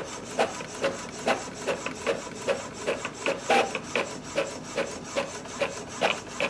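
Epson EcoTank ET-2400 inkjet printer printing a page: the print head carriage shuttles back and forth with a steady mechanical whirr, and a short tick comes at each pass, about two or three a second, as the sheet feeds out line by line.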